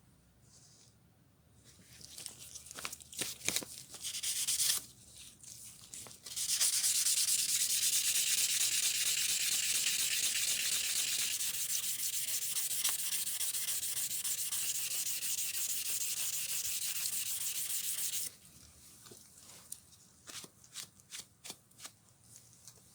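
Sanding during the hammer's restoration: a few scattered scrapes and taps, then a steady, loud rubbing hiss for about twelve seconds that starts and stops abruptly, followed by more light taps and scrapes.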